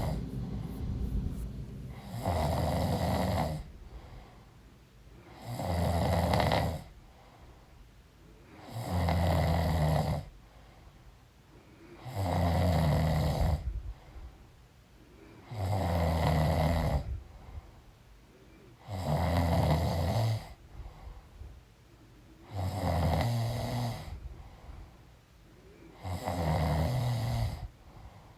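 A woman snoring in her sleep: deep, regular snores about every three and a half seconds, each lasting over a second, with quieter breathing in between.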